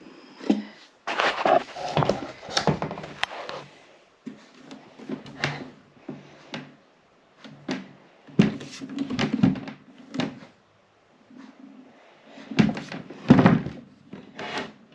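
Irregular knocks, thunks and rustling as a portable power station is handled and lifted out of its cardboard box and styrofoam packing.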